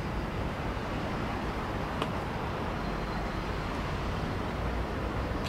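Steady city traffic noise, with one short click about two seconds in.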